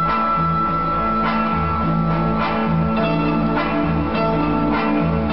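Orchestral music with a steady pulsing bass line and repeated plucked notes; a single high note is held for the first three seconds or so.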